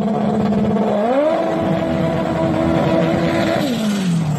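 Engine revving: it holds a steady note, rises in pitch about a second in, holds the higher note, then falls away near the end.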